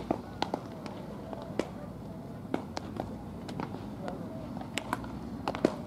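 Baseballs smacking into leather gloves during a game of catch: about a dozen sharp pops at irregular intervals, the loudest near the end, with voices chattering in the background.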